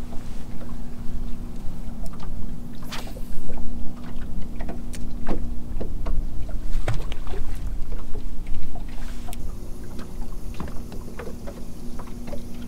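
Water lapping and slapping against the hull of a small fishing boat, with many light knocks and clicks scattered through it over a steady low hum.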